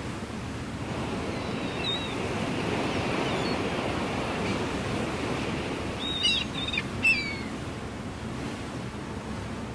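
Sea water rushing and splashing in a moving boat's wake, a steady wash. Short high bird calls cut in about two seconds in, then several more around six to seven seconds.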